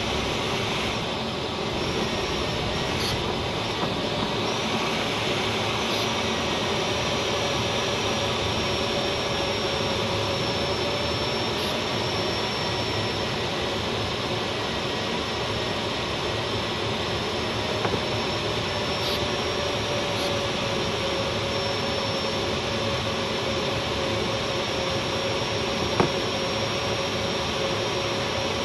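Steady rush of airflow over the canopy of a Duo Discus glider in unpowered flight, with a faint thin steady tone running underneath. One light click near the end.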